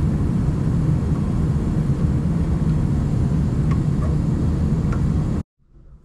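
Comfortmaker 45,000 BTU gas furnace running with its burners lit, a steady whirring rush with a few faint ticks in the middle; it cuts off suddenly a little over five seconds in.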